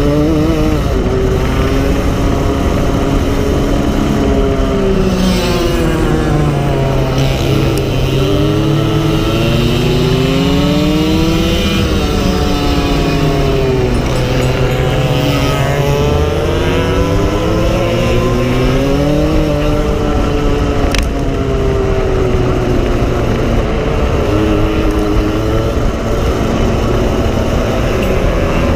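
Racing go-kart engine heard from onboard, its revs climbing and falling again and again as it accelerates out of corners and backs off into the next. A single sharp click comes about two-thirds of the way through.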